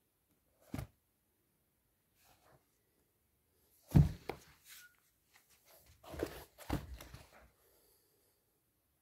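Used sneakers being handled and set down on a carpeted floor: a few short dull thumps and rustles, the loudest about four seconds in and another cluster around six to seven seconds.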